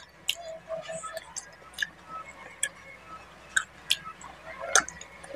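Close-miked eating sounds from a hand-eaten meal of fish curry and rice: a dozen or so scattered sharp, wet clicks and smacks, the loudest one near the end.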